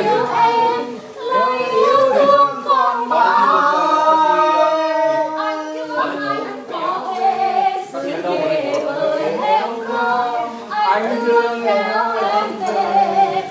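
A group of people singing together unaccompanied, several voices at once with long held, wavering notes.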